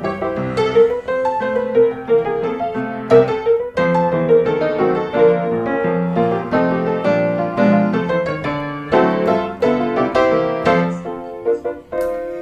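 Background piano music, a steady run of quick, light notes.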